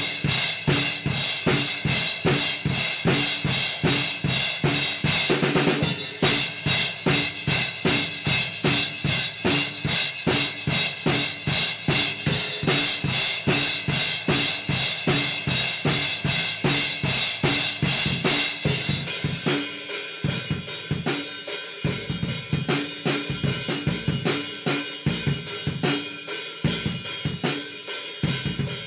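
Acoustic drum kit with Zildjian cymbals played with sticks in a steady rock groove of kick, snare and cymbals. A quick run of rapid strokes comes about five seconds in. From about two-thirds of the way through, the cymbal wash thins out and the beat plays on more lightly.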